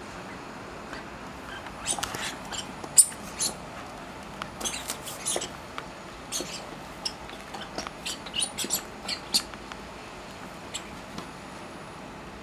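A corgi puppy moving about and nosing at a wooden rack: a scatter of short, sharp clicks and small rustles for several seconds, loudest a few seconds in, then only a few faint ticks.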